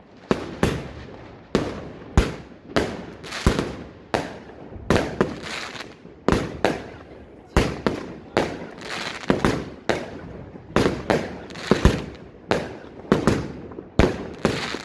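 Weco Time Machine firework cake firing shot after shot, about two a second, each a sharp bang with a short fading tail.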